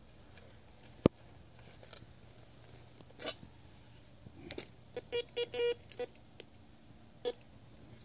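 A sharp knock of a spade against stone about a second in, then soil being pulled out of the hole. Around five to six seconds in comes a quick run of short electronic beeps from a metal detector signalling metal in the dug soil, with one more beep near the end.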